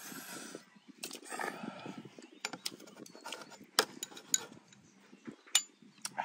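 A steel ladle clinks against an aluminium pot and ceramic bowls as soup is served: several sharp, separate clinks, the loudest about four and five and a half seconds in. Between them come soft slurping and eating noises.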